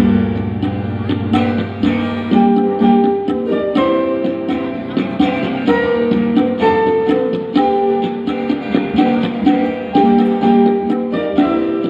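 Live instrumental band music: an electric guitar playing a quick run of short notes over keyboards, with a hand drum.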